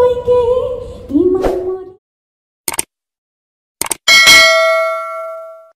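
A sung music phrase ends about two seconds in. After two brief clicks, a single bell ding rings out and fades away.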